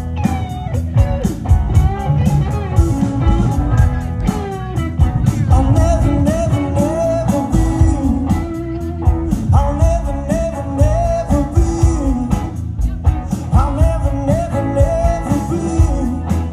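Live rock band playing: drums and bass under a bending, wavering lead melody.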